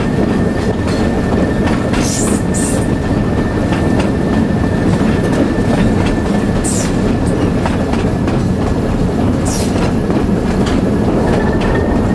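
ALCO RSD-1 diesel locomotive moving along the track, heard from its cab window: a steady rumble of engine and wheels on the rails with wind buffeting the microphone. A few brief high squeals cut through it.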